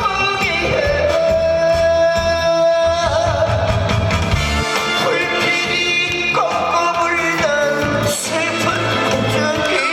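Live trot song with a singer and a band. The singer holds one long note from about half a second in to about three seconds in, then sings on with vibrato and sliding notes.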